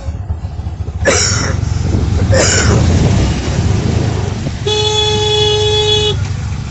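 A vehicle horn gives one steady honk lasting about a second and a half, past the middle, over a continuous low engine rumble. Earlier come two short rushing noises about a second apart.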